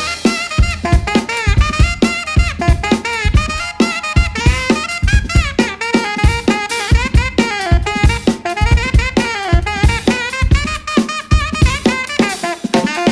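A live band playing a funk tune: a drum kit keeps a busy groove of kick and snare hits with rimshots, under a melodic lead line that slides and bends in pitch.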